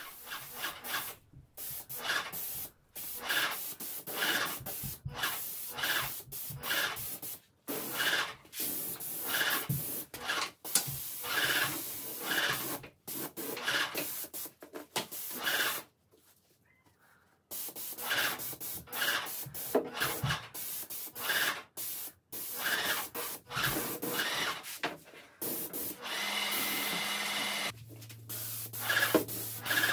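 Airless paint sprayer gun (Graco X17, fine-finish low-pressure tip) spraying shellac-based primer. It hisses in repeated passes about a second long, each starting and stopping sharply as the trigger is pulled and released, with one longer pause about halfway through. A steady low hum comes in near the end.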